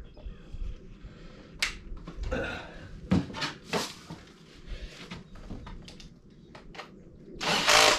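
Tools and parts knocking and clinking while a motorcycle is assembled by hand. Near the end comes a short, louder burst from an impact wrench driving a bolt.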